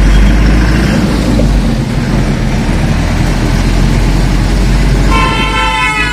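Truck engine running with steady road rumble inside the cab as it drives through town traffic. About five seconds in, a horn sounds for about a second.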